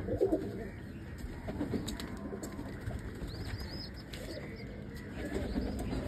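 Domestic pigeons cooing, with a few short high chirps about three seconds in.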